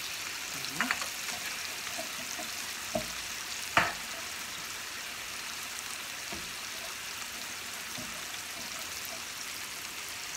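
Grated tomato, carrot and beetroot sizzling in sunflower oil in a frying pan, a steady hiss, with a few short knocks, the loudest about four seconds in.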